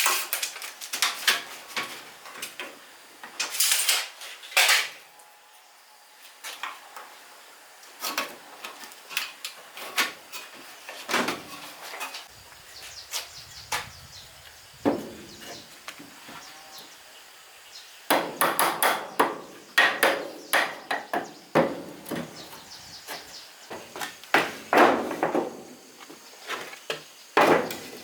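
Irregular knocks and taps on timber from woodworking, coming in bursts with short quieter gaps and busiest in the second half.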